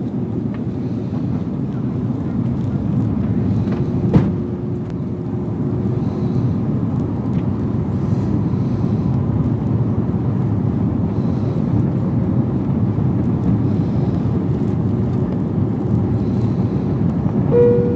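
Steady engine and airflow noise inside an airliner cabin in flight. There is a brief knock about four seconds in and a short pitched tone near the end.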